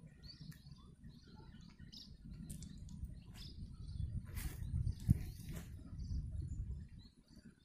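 Small birds chirping over a steady low rumble. Hands handling a fishing hook and line make a few short rustles and scrapes, with a sharp click about five seconds in.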